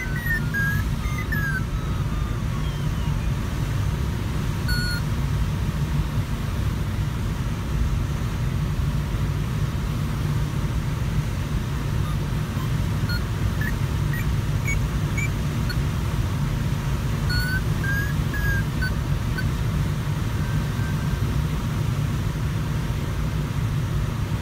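Steady rush of airflow inside the cockpit of a Sparrowhawk ultralight glider in flight. A few short, faint high beeps come about five seconds in and again in the middle.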